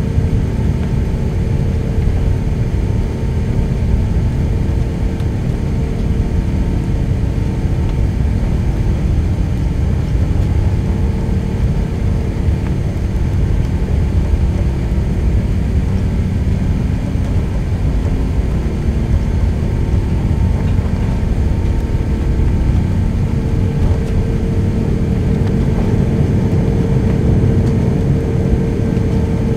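Airbus A380 cabin sound while taxiing: the steady low rumble of its Rolls-Royce Trent 900 engines at taxi power, with a constant hum that grows a little stronger near the end.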